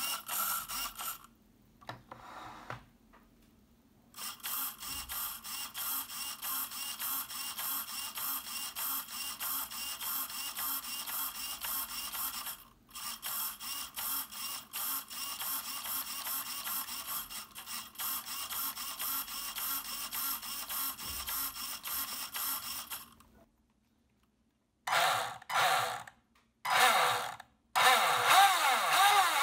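A steady pulsing mechanical whir for most of the time, breaking off twice. Near the end a MIG 500 Turbo Race brushed motor is spun up and down in short bursts, its whine rising and falling.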